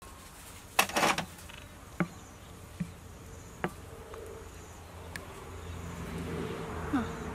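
Wooden ladle stirring and scraping through fish paste sauce in a clay bowl about a second in, then a few sharp knocks as the ladle taps against the rims of the bowls while sauce is spooned into a small ceramic bowl. A steady low hum runs underneath.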